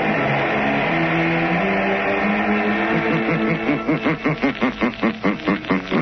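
Radio drama's closing theme music: held chords, turning about halfway into a quick pulsing figure of about five notes a second.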